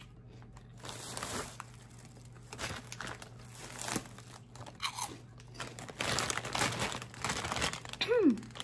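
Spicy Funyuns being bitten and crunched close to the microphone, with irregular crackling bites and chewing that grow denser in the second half, and some crinkling of the chip bag. A short hummed "mm" near the end.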